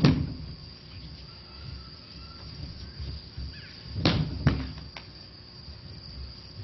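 Thuds and slaps of aikido breakfalls on a stage floor as partners are thrown: a loud one at the start, then two more about half a second apart around four seconds in, and a lighter knock just after.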